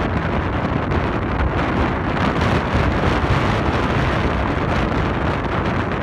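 Strong wind buffeting the microphone in a loud, steady rumble, over rough surf breaking and washing up the beach.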